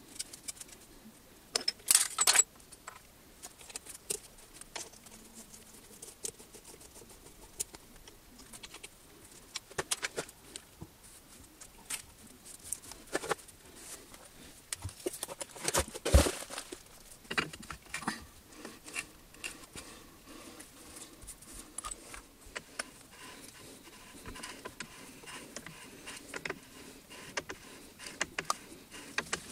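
Metal parts and hand tools being handled against machine tables: scattered clicks, taps and clinks, with louder clatters about two seconds in and again near the middle.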